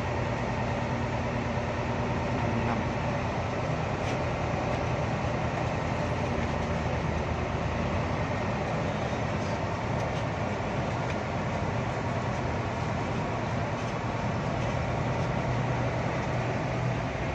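Diesel engine of a Hino AK8 bus heard from inside the cabin, running steadily at low speed in stop-and-go traffic, a constant low engine hum under general road and cabin noise.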